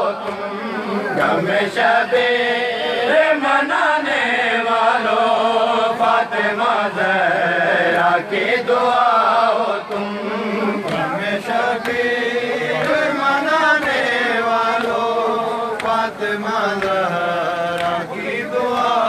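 A group of men chanting a devotional dua together in unison, the melody rising and falling in long sung phrases.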